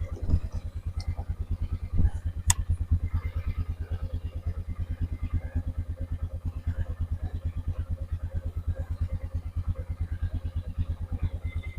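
ATV engine idling steadily with an even, fast putter. A single sharp click comes about two and a half seconds in.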